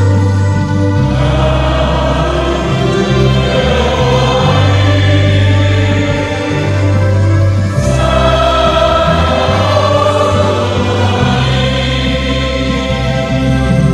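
Church band playing a slow hymn on electronic keyboard, saxophones, electric guitar and drums, with a strong steady bass line and voices singing the Batak-language words along.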